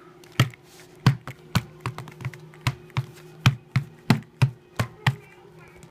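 A doll's shoes knocking on a hardwood floor as the doll is made to dance: a string of sharp, uneven taps, two or three a second.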